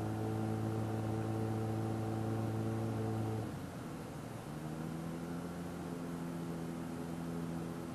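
Light aircraft engine idling through a power-off landing flare, heard as a steady drone in the cockpit. About three and a half seconds in the drone drops away briefly, then returns at a different pitch.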